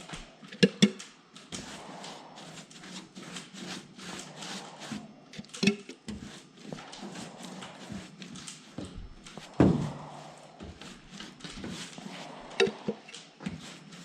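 Paint stripper being brushed on by hand: a steady run of short brushing and scraping strokes, with a few sharp knocks, two of them in quick succession about a second in and two more near the end.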